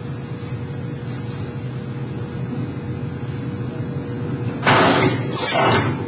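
Foot-treadle squaring shear cutting galvanized sheet metal: two loud metallic crashes about half a second apart, near the end, with ringing after the second, over a steady background hum.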